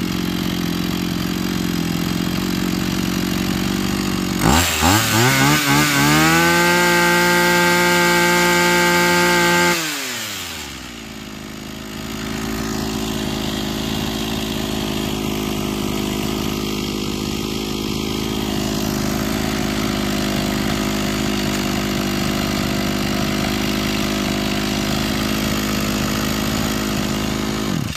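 Maruyama KC26M 26cc two-stroke brush cutter engine idling smoothly. About four seconds in it is blipped a few times, then revved up and held at high revs for several seconds. It falls back to a steady idle for the rest of the time.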